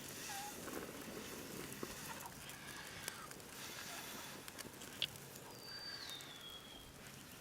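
Faint crackling of a small, newly lit fire of bark and tinder, with a few scattered pops. A short falling whistle comes near the end.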